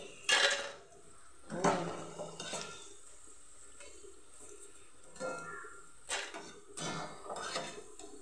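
A steel slotted ladle clatters and scrapes against a steel pot of frying oil, and fried banana chips tip out of it into a steel colander. There is a loud clatter just after the start, another about a second and a half in, and several lighter knocks in the last three seconds, over the faint steady sizzle of the oil.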